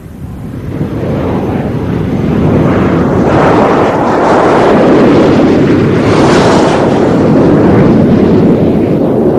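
Twin jet engines of a taxiing Martin B-57 Canberra bomber running. The noise swells up over the first two or three seconds, then holds loud and steady, with a brighter hissing surge about six seconds in.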